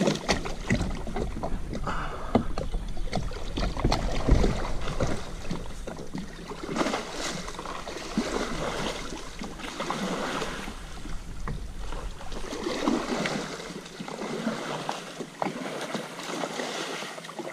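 Kayak paddle strokes in the water, splashing and dripping, swelling about every three seconds. Wind rumbles on the microphone during the first few seconds.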